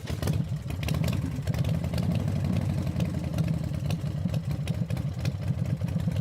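Harley-Davidson Street Glide's Milwaukee-Eight V-twin engine idling steadily with a fast, even pulse.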